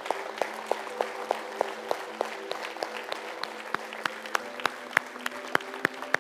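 One person clapping steadily, about three claps a second, over lighter applause from the congregation.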